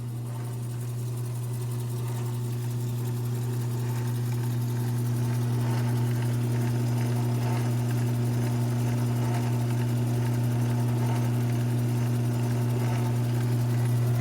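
A modified mini lathe's electric motor running with a steady low hum while a drill bit bores a hole into the turning workpiece. It grows a little louder over the first few seconds, then holds steady.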